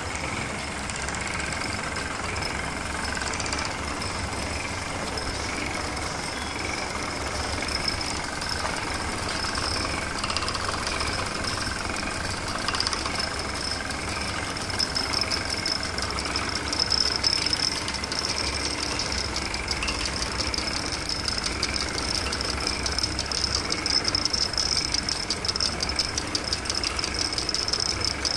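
Workshop machinery running steadily, with spinning wheels and a wire-winding spool. A fast, even ticking rattle grows stronger in the second half.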